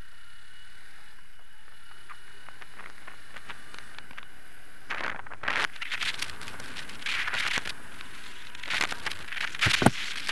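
Steady noise over the microphone of a camera carried on a moving motorcycle. From about halfway it is broken by irregular crackling and rustling bursts, with a sharp knock near the end.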